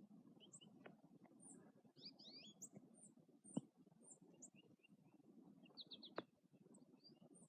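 Faint scattered chirps of small birds over a low steady rustle, with two sharp clicks about three and a half and six seconds in.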